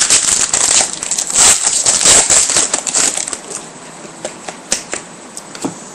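Crinkling of a foil trading-card pack wrapper and cards being handled, dense crackling for about three seconds, then a few scattered light clicks.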